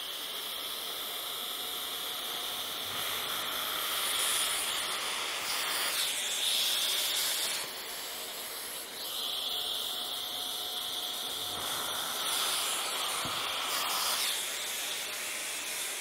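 Festool mobile dust extractor running with a steady hiss of suction through the hose and drill template, while a cordless drill with a 15 mm routing bit bores holes into a wooden panel. The hiss changes for a few seconds in the middle as the template is moved to the next position.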